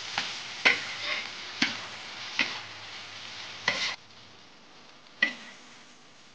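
Shredded beef stir-frying in a wok: a steady sizzle with a metal spatula knocking against the wok five times. The sizzle drops away about four seconds in, and a single ringing metal clink follows about a second later.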